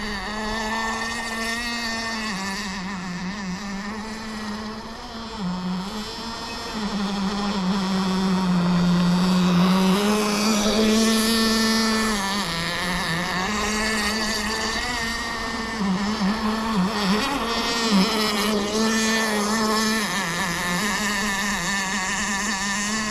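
Small two-stroke nitro glow engine of an RC boat, a Kyosho GT32 marine, running on the water with a steady pitched drone. Its pitch dips and rises again several times.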